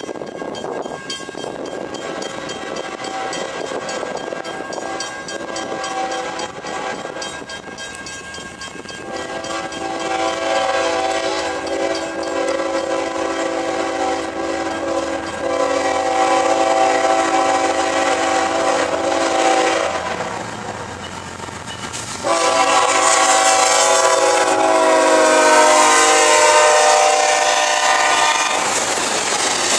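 CSX ES44AH locomotive's air horn blowing as a loaded coal train approaches. It is faint at first, then sounds in long chord blasts that grow louder. After a short break about two-thirds through, a final loudest blast sounds as the locomotive passes, its pitch dropping slightly, over the rumble of the train.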